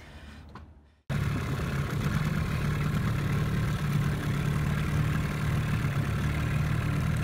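A boat's engine running steadily, cutting in suddenly about a second in after a near-quiet moment.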